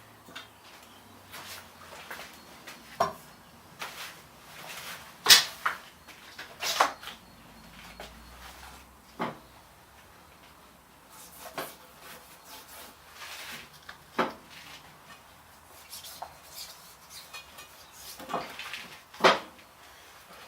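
Scattered metallic knocks and clinks from handling a motorcycle wheel, tyre and tyre-changing tools, about a dozen separate hits with the loudest about five seconds in.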